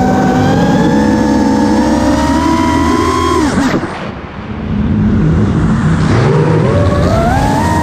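Brushless motors of an iFlight DC5 five-inch FPV quadcopter whining, heard from the onboard GoPro with air rushing past. About three and a half seconds in the whine falls sharply and the sound drops briefly, then it climbs back up in pitch toward the end.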